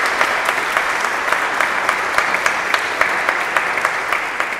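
Audience applauding: many hands clapping steadily, starting to fade near the end.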